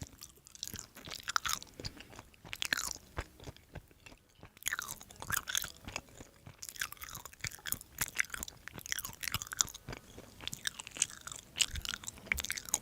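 A person chewing food close to the microphone: irregular mouth clicks, smacks and light crunches.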